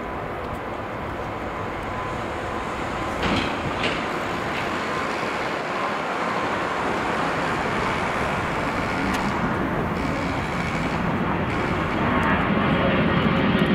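Airbus A321-211 jet engines (CFM56-5B) running on the runway as the airliner begins its takeoff, a steady rushing noise that grows louder near the end. Two brief knocks about three seconds in.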